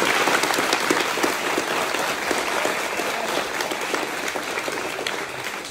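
A roomful of people applauding, dense clapping that starts loud and dies down gradually.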